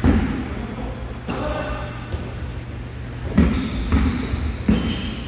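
Basketballs bouncing on a hardwood gym floor, irregular thuds from several players dribbling, with sneakers squeaking on the boards during the second half.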